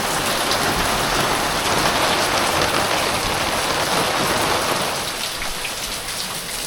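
Heavy rain pouring down and drumming on surfaces in a dense, steady hiss that eases slightly about five seconds in.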